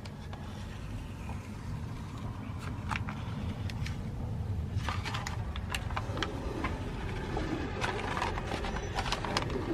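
Scattered clicks, taps and light scrapes of plastic air-intake parts being handled and fitted by hand, becoming frequent after about five seconds, over a steady low rumble.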